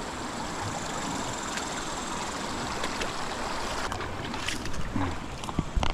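River water rushing and splashing steadily around a person wading across a stream, with a few clicks and heavy thumps near the end as the footing changes.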